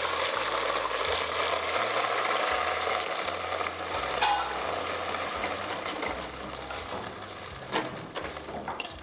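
Loud hissing sizzle as a thin semolina mixture is poured slowly into hot ghee and caramelized sugar, the pot boiling up hard; the hiss fades gradually, with a couple of knocks near the end.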